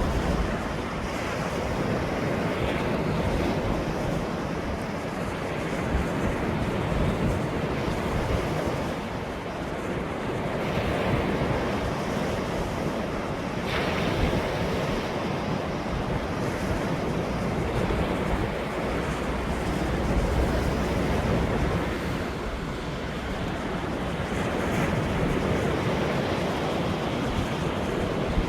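Ocean waves breaking on a shore, the surf rising and falling in slow swells every few seconds, with wind rumbling on the microphone.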